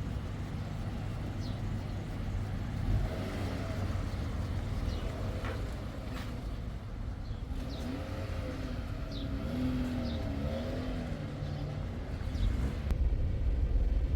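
Steady low engine drone of a running motor vehicle, getting louder near the end, with a few faint high chirps over it.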